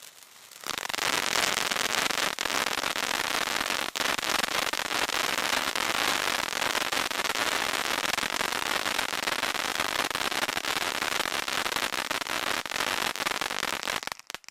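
World Class Fireworks 'Time to Shine' 200-gram consumer fountain spraying sparks. A dense, steady hiss full of crackle jumps up suddenly about a second in and cuts off near the end as the fountain burns out.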